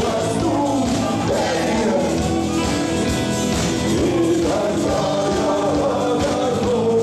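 Live rock band playing a song.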